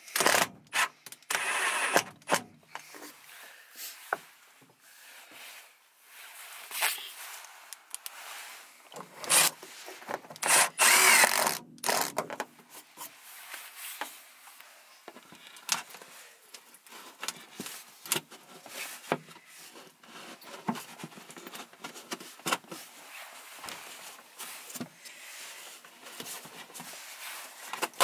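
Power drill running in short bursts, driving screws to fix a wooden panel in place, the longest and loudest burst about ten seconds in. Between the bursts, scattered knocks and clicks of parts being handled and fitted.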